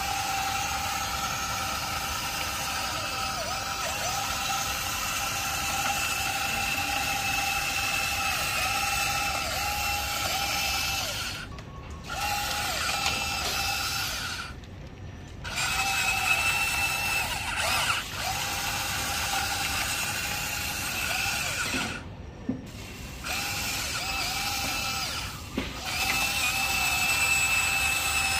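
Huina RC excavator's small electric gear motors whining as the boom, arm and bucket move, the pitch dipping now and then under load. The whine stops briefly three times, about twelve, fifteen and twenty-two seconds in.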